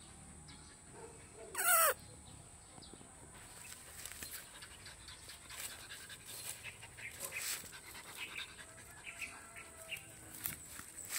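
A dog gives one short, loud yelp that falls sharply in pitch about two seconds in. After that come soft, irregular rustles and snuffles as the dogs move about and sniff among dry leaves.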